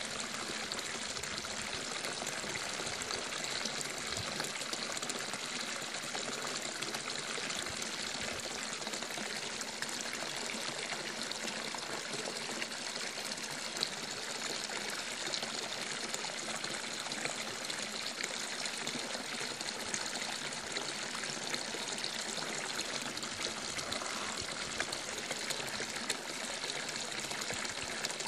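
Water running steadily without a break.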